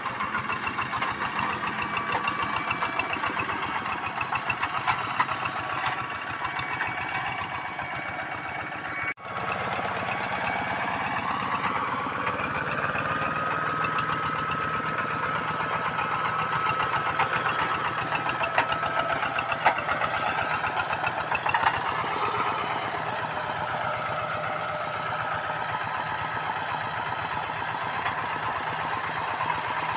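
Single-cylinder diesel engine of a two-wheel hand tractor running steadily under load while it ploughs, with a brief break about nine seconds in.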